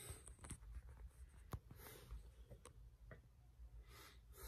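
Near silence, with a few faint sharp clicks and a few soft scratchy rustles over a low hum.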